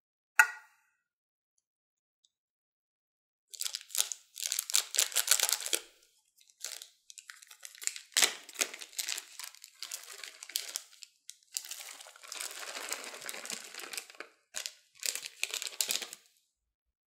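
Small clear plastic zip bag crinkling and rustling in irregular bursts with short pauses as it is handled and emptied. A single sharp click comes about half a second in.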